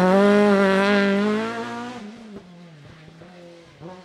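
Renault Mégane Maxi rally car's engine at high revs pulling away through a bend, its pitch climbing steadily. About two seconds in it drops sharply in loudness and carries on fainter, with a few brief dips in revs.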